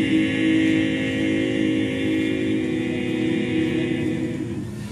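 Four male voices of a barbershop quartet singing a cappella, holding one long chord that slowly fades near the end.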